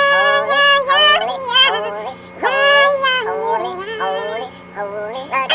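High-pitched voices singing long held notes that glide between pitches, in phrases broken by short pauses, over a steady low hum.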